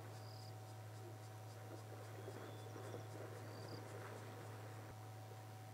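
Faint bush ambience: insects chirping in an even run of high ticks, about four a second, with a few short high whistles, over a steady low hum.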